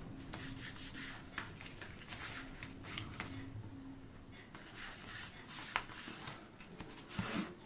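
Faint rubbing and rustling of paper being handled, with scattered light taps and clicks.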